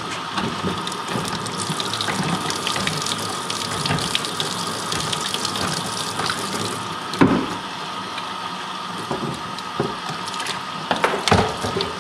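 Hot water running steadily from a sink faucet into a deer skull's brain cavity, flushing out the softened brains. A few sharp knocks cut through it, one about seven seconds in and a cluster near the end.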